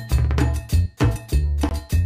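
Outro music with a quick, steady percussive beat of wood-block-like clicks over a bass line.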